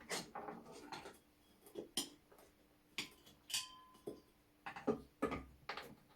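Irregular light clicks and knocks of tools and metal parts being handled on a workbench, about a dozen short taps spread unevenly over several seconds.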